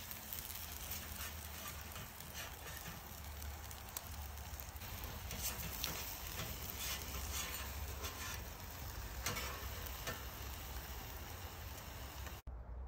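Whole trout sizzling on a hot charcoal grill grate, a steady sizzle with scattered small crackles.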